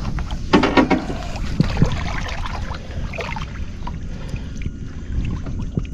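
Water splashing and sloshing around a bull redfish held by hand in the current, loudest in a burst of splashing about half a second in, over a steady low rumble.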